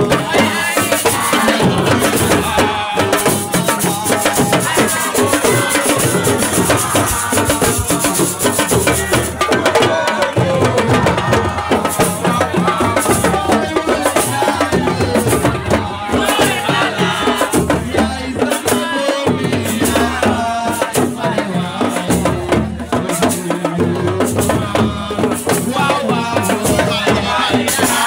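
Lively folk music with drums and shaken rattles keeping a steady rhythm, with voices over it.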